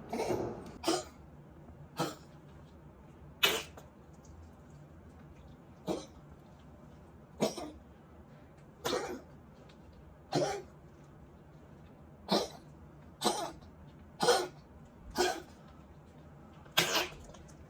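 A dog with tracheal collapse coughing over and over, about a dozen short single coughs spaced a second or two apart.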